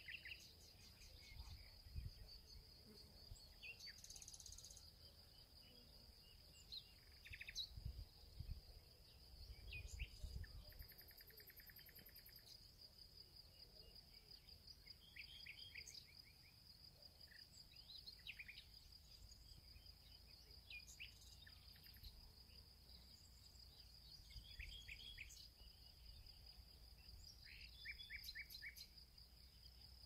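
Faint nature ambience: a steady high insect trill runs throughout, with small birds chirping here and there, sometimes in short quick series. A few brief low rumbles come in the first third.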